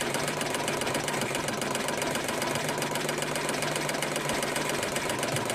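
Schiffli embroidery machine running at a steady pace: a fast, even mechanical clatter over a constant hum.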